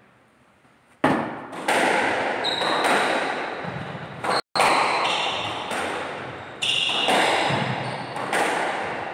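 Squash rally: the ball struck by the rackets and hitting the walls, a string of sharp hits starting about a second in, each ringing out in the echoing court. Short high squeaks, from shoes on the wooden floor, come between some hits.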